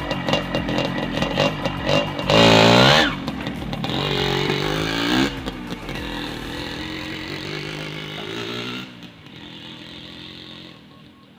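Yamaha DT125's single-cylinder two-stroke engine running, blipped up twice with rising revs a couple of seconds in, then falling back and going quieter about nine seconds in. It is being test-run with a newly fitted reed valve, meant to cure its hard starting.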